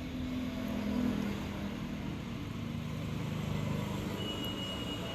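A motor vehicle's engine running, its low hum sinking slightly in pitch over a few seconds; a thin high whine comes in near the end.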